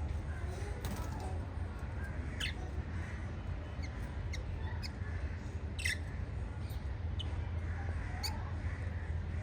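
Pet budgerigars giving scattered short, sharp chirps, about ten over several seconds, over a steady low hum.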